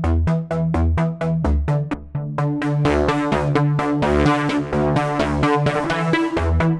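Korg Modwave wavetable synthesizer playing a preset: a fast, repeating pattern of short notes, about five a second, over pulsing bass. The tone grows much brighter about two seconds in, as if a filter opens, and closes down again near the end.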